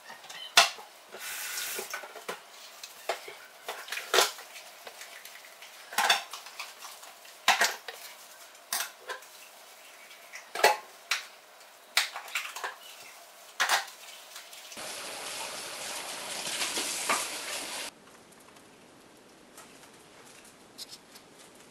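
A basting brush tapping and scraping against a small china bowl and plate: a dozen or so sharp, irregular clinks. About two-thirds of the way through the clinks give way to an even hiss lasting about three seconds, followed by a quieter stretch with a couple of faint taps.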